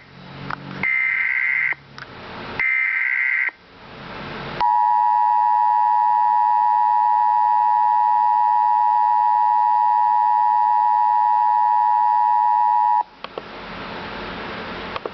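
Emergency Alert System broadcast: the last two of the three short, buzzy digital SAME header bursts, then the EAS two-tone attention signal (853 and 960 Hz together) held steady for about eight seconds. It cuts off abruptly into background hiss.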